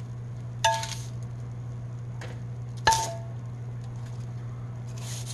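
Dishes and utensils clinking as food is plated: two sharp ringing clinks, about a second in and about three seconds in, with a few lighter taps near the end, over a steady low hum.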